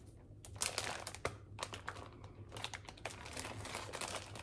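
Plastic packaging crinkling, with many irregular small clicks, as a wax melt sample is handled and unwrapped. The handling starts about half a second in.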